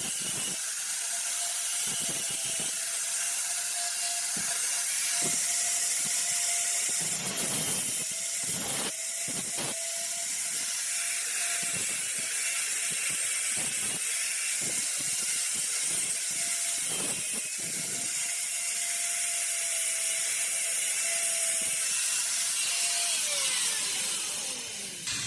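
Electric grinder cutting into the steel end of a car door hinge pin, its motor whining steadily with a harsh grinding hiss, to free the worn pin from the hinge. Near the end the motor is switched off and spins down.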